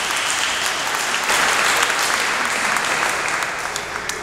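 Audience applauding, growing louder about a second in and dying away near the end.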